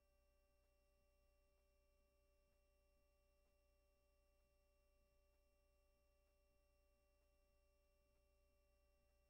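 Near silence: only a faint, steady electrical hum with a few thin unchanging tones.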